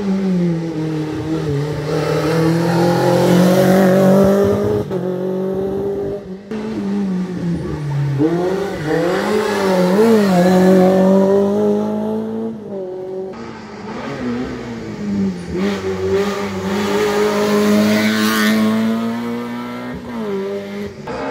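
Rally car engines revving hard through a tight bend. The engine note rises and falls with the throttle and gear changes, with quick throttle blips about halfway through. The sound changes abruptly several times where short clips are spliced together.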